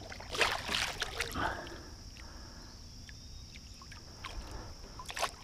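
Water splashing and sloshing as a large fish is lowered over the side of a boat and released, in short bursts about half a second and a second and a half in, then quieter, with another splash near the end.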